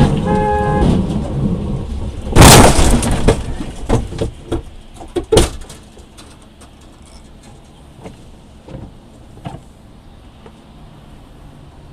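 Car horn honking, stopping within the first second, then a loud bang about two and a half seconds in and several sharper knocks over the next few seconds, fading to low steady road noise.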